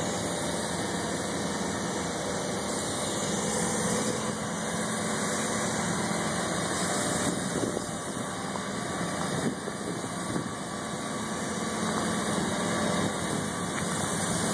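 An engine running with a steady, unchanging hum and low drone.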